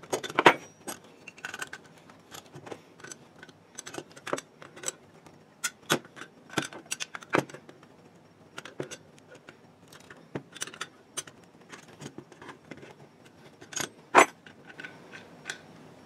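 Irregular metallic clicks and clinks of a 9/16-inch wrench working a stubborn fitting loose from the bottom of an air-compressor pressure switch. The metal switch body and fitting knock against the tool and the bench. The sharpest clicks come about half a second in and again near the end.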